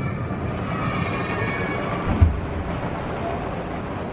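A steady rumbling noise with faint high squealing tones over it, and one dull, distant firework boom about two seconds in.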